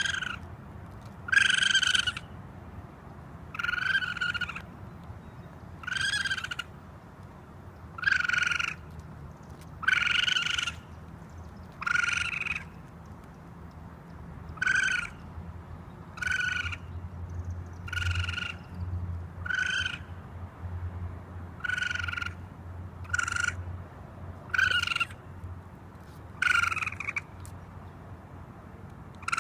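Raccoon giving a series of short, high-pitched calls, about one every two seconds.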